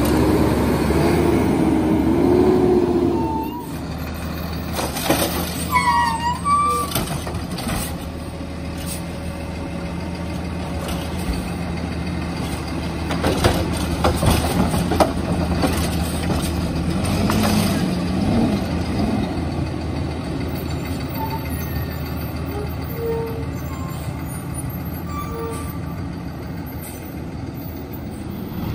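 Kenworth single-axle garbage truck with a Curbtender automated side-loader arm working a stop. The diesel engine runs steadily under a wavering hydraulic whine at the start. Clunks around the middle come as the arm lifts and dumps a cart, and the truck then pulls away.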